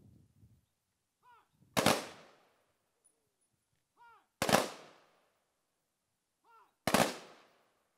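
Three-volley rifle salute by a JROTC rifle team: three sharp volleys fired in unison about two and a half seconds apart, each ringing out and fading over about half a second.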